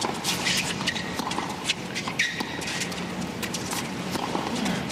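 Tennis rally on a hard court: a serve and the ball being struck back and forth by rackets, with sneakers squeaking on the court and a crowd murmuring in the background.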